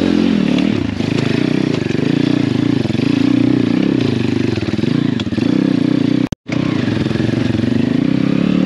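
Apollo RFZ pit bike's swapped 150cc single-cylinder four-stroke engine running under way, its pitch rising and falling with the throttle. The sound cuts out completely for a split second about six seconds in.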